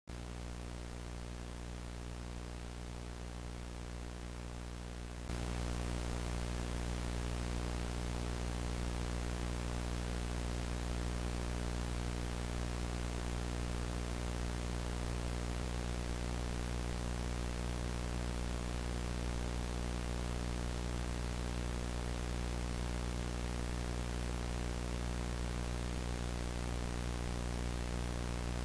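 Steady electrical hum with a hiss of static, starting abruptly out of silence and stepping up louder about five seconds in, then holding unchanged.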